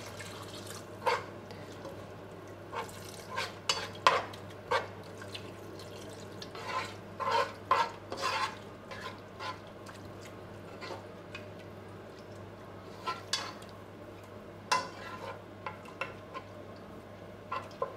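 Metal spoon stirring a watery onion masala in a non-stick pot, scraping and clinking against the pot's sides and bottom in irregular strokes.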